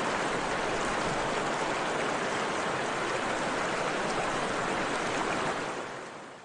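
Steady water-ambience noise, rushing and even, of the rain-or-stream kind used as a masking track; it fades out over the last second.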